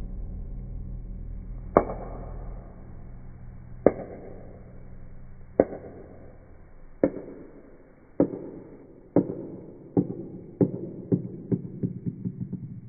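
Hard clicks of a small ball knocking on a plastic toy marble-run track, about a dozen, first about two seconds apart and then coming faster and faster until they run together. A low hum fades out in the first half.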